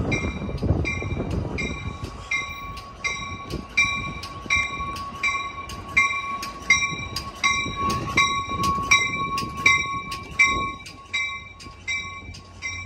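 Train bell on Amtrak San Joaquin cab car 6961 ringing steadily, about three strikes a second, as the train pulls into the station. Beneath it a steady high squeal and a low rolling rumble from the train die away about ten and a half seconds in.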